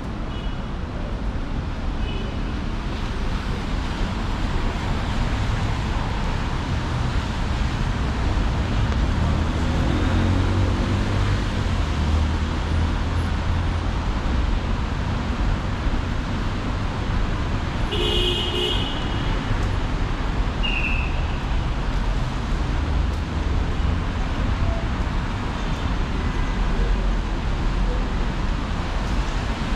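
City street traffic: the steady rumble of passing cars and buses, with one engine rising in pitch around ten seconds in and a short horn toot about eighteen seconds in.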